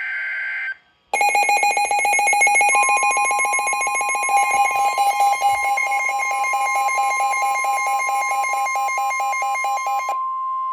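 A short burst of EAS digital header data tones, then about a second in a loud electronic alarm starts beeping in a fast pulse. About two seconds in, the steady tone of the NOAA Weather Radio warning alarm joins it and holds on after the beeping stops near the end. Together they signal a new weather warning broadcast.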